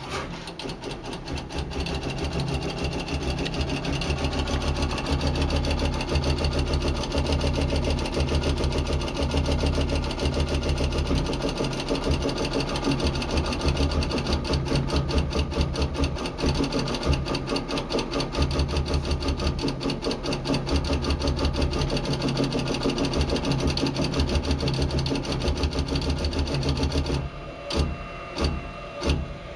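Automated solder paste dispenser at work: the gantry and dispense head move rapidly from dot to dot, making a fast, steady mechanical chatter of clicks over a pulsing motor hum. Near the end the chatter thins into separate clicks.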